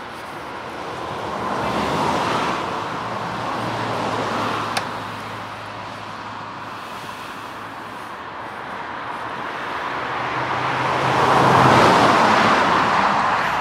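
Two motor vehicles passing by, each one swelling up and fading away: the first peaks about two seconds in, and a louder second one peaks near the end. A single sharp click comes just under five seconds in.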